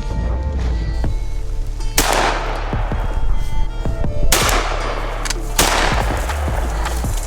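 Three shotgun shots, each with a long echoing tail: the first about two seconds in, then two more about a second and a half apart, over background music.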